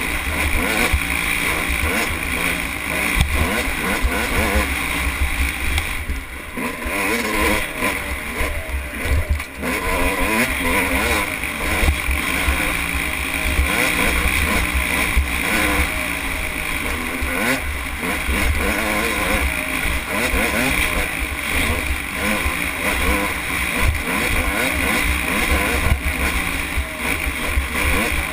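Dirt bike engine heard from on board, its pitch repeatedly rising and falling as the rider works the throttle, with heavy wind rumble on the microphone.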